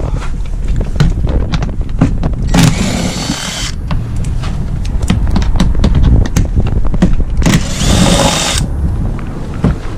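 A 10mm socket undoing the skid plate bolts on a car's underside. Rapid clicking and knocking throughout, with two whirring bursts of about a second each, about three seconds in and again near eight seconds.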